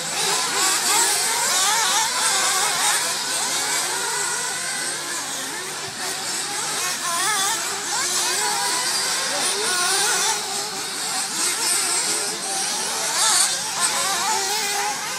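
Several 1:8 scale nitro RC off-road buggies racing at once, their small high-revving engines overlapping in a continuous buzz, each pitch rising and falling as the cars accelerate and brake around the track.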